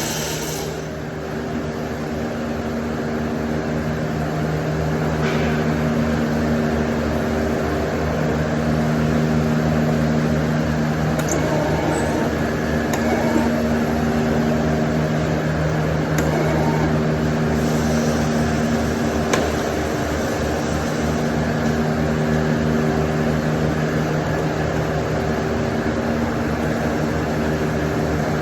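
MIG welding setup running: a steady electrical hum with a dense low buzz and a few faint clicks.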